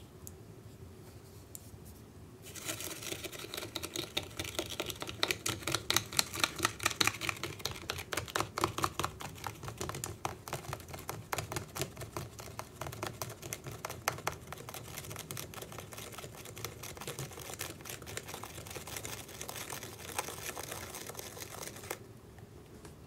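A clear plastic stick rapidly stirring and whipping white candy mixture into foam in a small plastic toy sink basin: a fast, continuous run of clicking taps and scrapes against the plastic. It starts about two and a half seconds in and stops abruptly about a second before the end.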